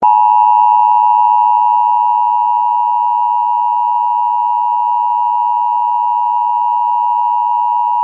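Emergency Alert System attention signal: two steady tones sounded together (853 and 960 Hz), loud and held unchanged for about eight seconds, then cut off abruptly. It is the warning tone that announces an Emergency Action Notification is about to be read.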